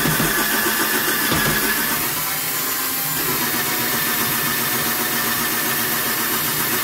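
Black & Decker battery drill running at low speed, turning a paddle stirrer in a plastic bucket to mix malt syrup into water for a beer kit. It runs steadily, with a slight shift in tone about two seconds in.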